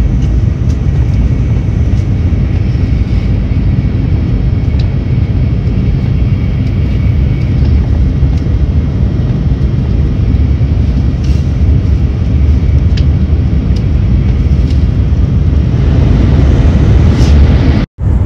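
Steady low rumble of a moving train heard from inside the passenger car, with a few faint clicks and rattles; it grows a little louder near the end.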